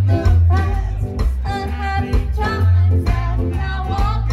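Live rockabilly band playing: a woman singing lead over electric guitars, a heavy bass line and drums.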